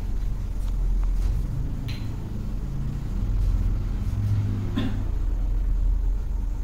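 A low, steady rumble, with two faint clicks, one about two seconds in and one near five seconds.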